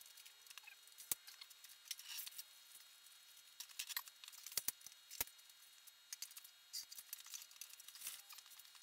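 Plastic poles and fittings of a badminton net frame clicking and knocking as they are handled and pushed into the base, with light rustling and scuffs in between. A few sharp knocks stand out, one about a second in and a cluster a little before the middle.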